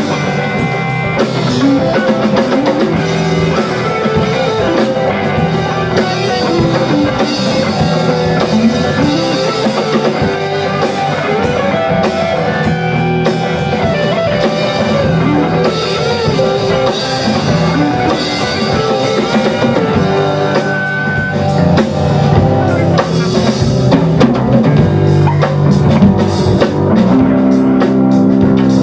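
Rock band playing live: electric guitars over a drum kit.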